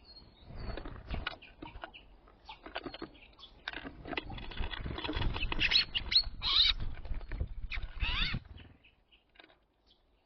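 Small songbirds at a window seed feeder: wings fluttering, with beaks and claws tapping and scrabbling on the feeder. Short high chirps and trills come in the second half, then the activity thins out near the end.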